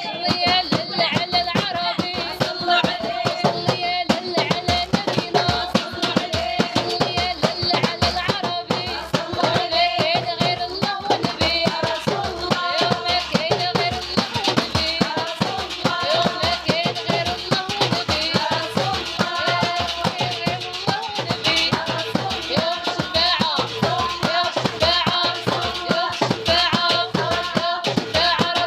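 Music with singing over fast, dense hand percussion and rattles, played steadily without a break.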